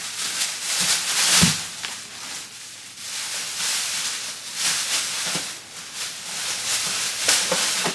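Plastic shopping bag and packaging rustling and crinkling in irregular surges as items are pulled out and handled, loudest about a second and a half in.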